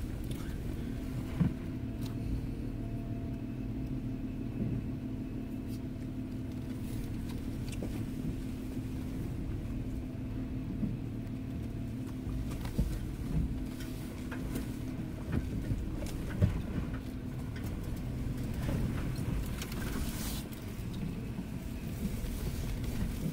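Off-road vehicle's engine running steadily at low speed, heard from inside the cabin as it crawls over a rocky trail. A few sharp knocks and clunks come through, at about a second and a half in and several times between about 12 and 17 seconds in.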